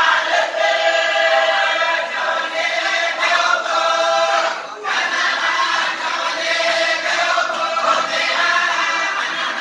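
A group of men singing a chant together, in phrases with a short break just before five seconds in.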